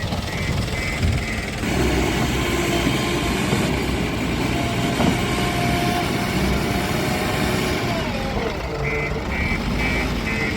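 Diesel engine of a JCB 3DX backhoe loader running under load while loading. A high beeping repeats about three times a second at the start and again from about nine seconds in.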